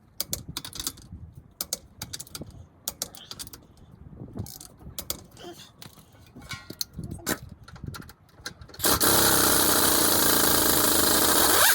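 Light clinks and knocks of lug nuts and tools being handled. About nine seconds in, an impact wrench runs hard for about three seconds, driving the wheel nuts on, and spins down at the end.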